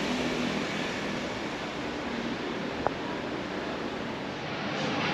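Steady outdoor background hiss, with a single short click about three seconds in.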